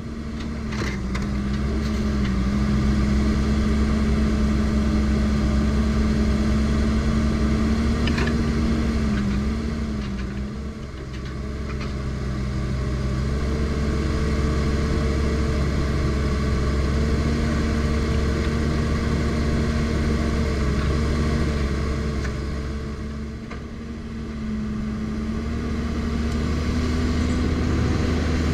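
Valmet forwarder's diesel engine running steadily at working revs while its crane handles logs, the engine pitch dipping and recovering a little several times. The sound eases briefly twice, about ten seconds in and again about three-quarters through.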